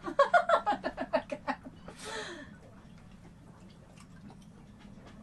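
A person laughing in a quick run of short, pitched bursts for about a second and a half, then one breathy exhalation with falling pitch.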